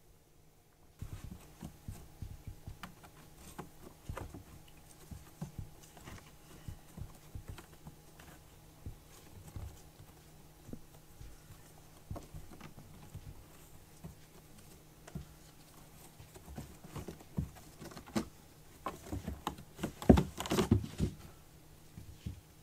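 Kittens' paws stepping and clawing on the top of a corrugated cardboard scratcher: irregular soft taps and scrapes, with a louder flurry of scrapes near the end.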